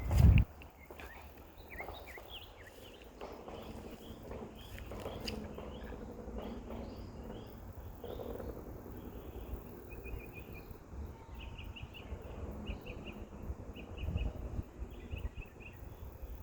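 Outdoor ambience: short high chirps repeat in quick runs, busiest in the second half, over a steady low rumble. A loud thump comes right at the start.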